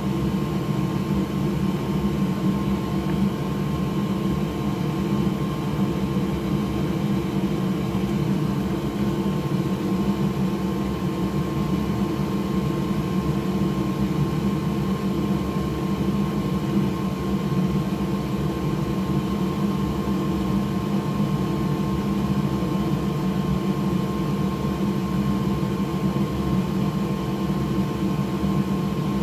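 Steady whir of a small electric fan or blower motor with a low hum and a faint thin tone above it, running unchanged throughout.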